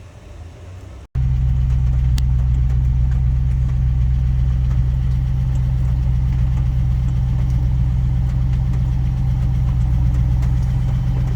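Range Rover P38's engine idling steadily, coming in abruptly about a second in.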